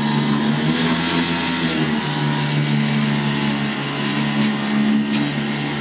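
Boat's engine running steadily under way: a constant low hum over a broad hiss, its note shifting slightly about two seconds in.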